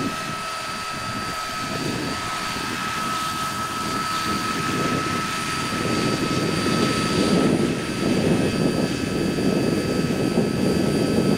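Radio-controlled scale Westland Lynx HMA Mk8 helicopter running, hovering low and then settling onto the grass with its rotors still turning. A steady high whine sits over the rotor wash, and the rotor noise grows louder about halfway through.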